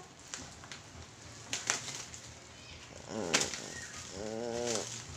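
Scissors cutting into plastic bubble wrap, with a few sharp snaps and crinkling. A short hummed voice sound rises and falls near the end.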